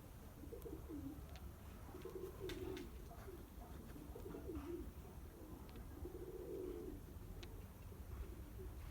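Domestic pigeons cooing, four or five low rolling coos one after another, with a few faint clicks and a steady low rumble underneath.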